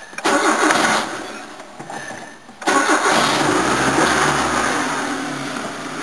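1989 Ford Laser (Mazda 323) carburetted four-cylinder engine cranked by the starter for about two and a half seconds, then catching and running at a high fast idle on the choke.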